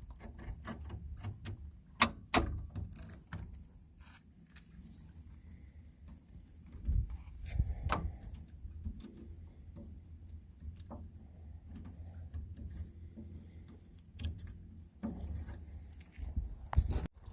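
Razor blade trimming flexible drawer liner along the drawer's corner seam: scattered small clicks and scrapes of the blade and liner being handled, with two sharp clicks about two seconds in and another near the end, over a steady low hum.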